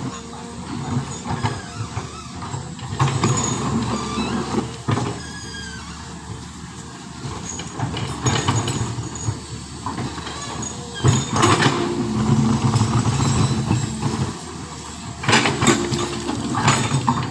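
Heavy diesel vehicle engines running, with short bursts of hiss or clatter about a third of the way in, past the middle and near the end.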